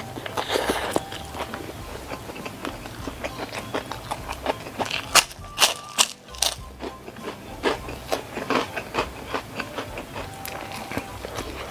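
Close-miked eating: a mouthful of stir-fried mini sausages, crisp half-cooked shallots and rice being chewed, with many short wet mouth clicks and crunches. A cluster of louder, sharper crunches comes around the middle.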